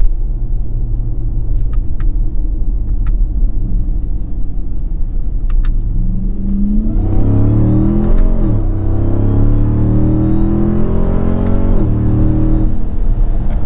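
Ram TRX's supercharged 6.2-litre V8 with an AWE 0FG exhaust, heard from inside the cabin. It cruises steadily for about six seconds, then accelerates hard, the note rising with a thin high whine alongside. The pitch drops sharply twice at upshifts, and the engine eases off near the end.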